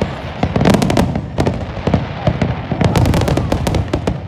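Aerial fireworks bursting in quick succession: a steady run of sharp pops and crackles over deep rumbling booms, with dense flurries of reports about half a second in and again around three seconds in.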